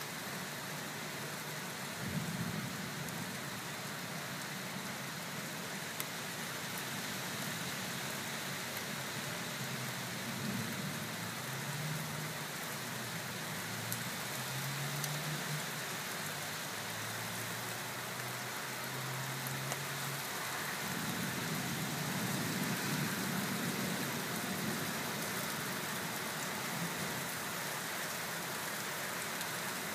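Heavy rain falling steadily on pavement, a constant hiss. Low thunder rumbles under it: one starting suddenly about two seconds in, and a louder one about two-thirds of the way through.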